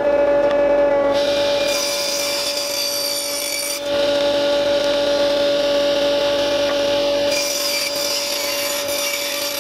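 Table saw running at full speed and ripping 3/4-inch plywood in two passes: the first cut starts about a second in and lasts a couple of seconds, the blade freewheels with a steady whine, and the second cut starts about three-quarters of the way through.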